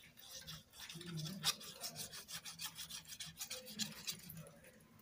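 Tip of a liquid-glue squeeze bottle scraping and dragging across cardstock as glue is drawn on in lines: soft, irregular scratchy rubbing.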